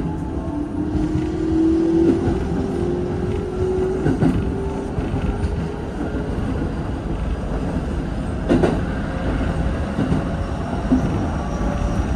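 Keikyu 1500 series electric train running, its traction motors whining and rising in pitch as it accelerates over the first few seconds, over a steady rumble of wheels on rail with occasional knocks from rail joints.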